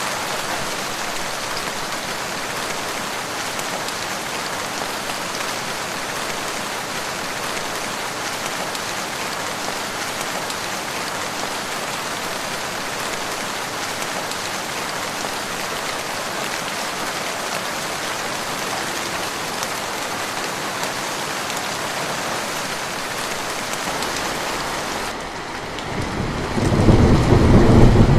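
Steady rain, an even hiss. About 25 seconds in the hiss turns duller, and a loud, deep rumble of thunder builds near the end.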